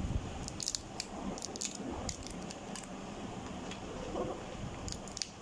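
Paper and thin 3D-pen plastic being bent and peeled apart, giving scattered crackles and clicks with a few dull knocks.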